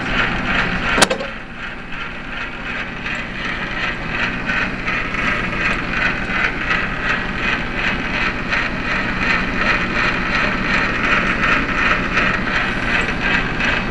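Benchtop mini metal lathe running with its chuck spinning: a steady motor hum and gear noise with a fast, even pulsing, and one sharp click about a second in.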